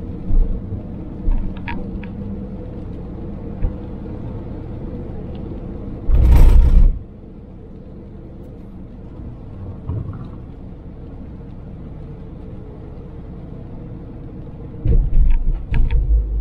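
Suzuki Jimny driving on the highway, heard from inside: a steady engine and road rumble, with a loud rush of noise about six seconds in and a few low thumps near the end.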